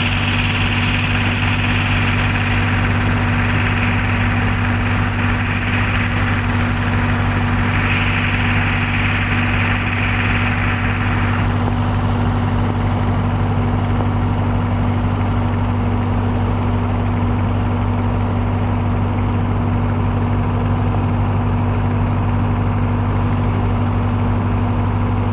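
Heavy machinery engine running steadily at a constant speed, a low hum with a steady lower tone beneath, and a higher hiss over it that stops about eleven seconds in.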